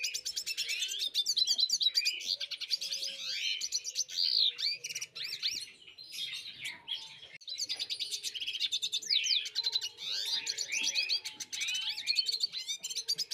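Small birds chirping and twittering in quick high trills, with short pauses about six and seven and a half seconds in.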